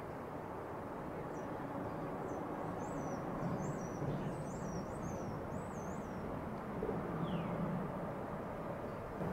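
Steady low rumble of a passing lake freighter's engines and wake. A small bird chirps several times in quick high notes in the first half, and a single falling whistle comes near the end.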